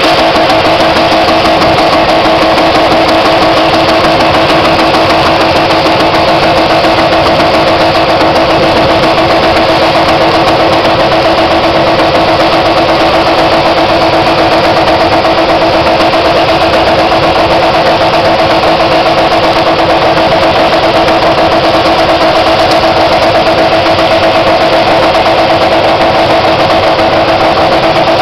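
A BMW's engine held at steady high revs through a long burnout, rear tyres spinning against the pavement. The note is loud and barely changes in pitch.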